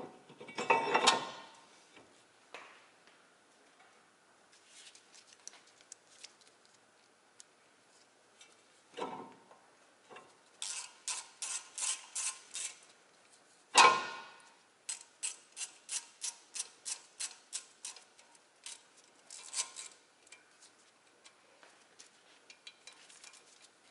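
New brake rotor knocking metal-on-metal as it goes onto the wheel hub, then runs of quick, even clicks, about four a second, from a small ratcheting driver turning the rotor's Torx retaining screw, with one loud clank between them.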